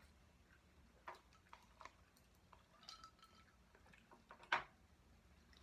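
Near silence with a few faint clicks and light knocks of small handling noises, the loudest about four and a half seconds in.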